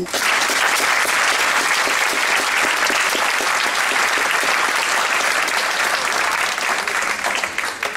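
Audience applauding: dense clapping starts suddenly and holds steady, then thins out near the end.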